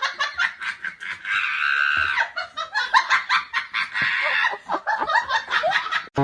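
High-pitched laughter in quick, choppy bursts.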